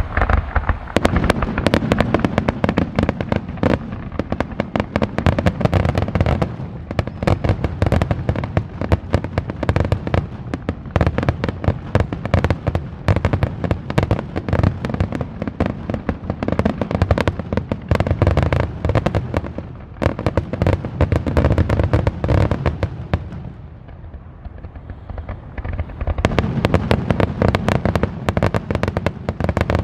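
Aerial fireworks in a rapid, continuous barrage of booms and crackling bursts. The barrage eases briefly about three quarters of the way through, then builds back up.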